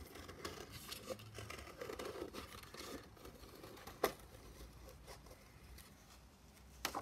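Scissors snipping around a curve in thin black card, a run of short faint cuts with the card rustling as it is turned, and one sharper click about four seconds in.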